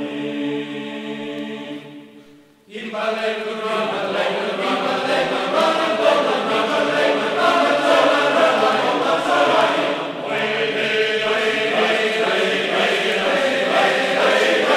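Choral music: a sustained chord of many voices fades out about two and a half seconds in, and after a brief gap a new passage of choir singing begins and carries on.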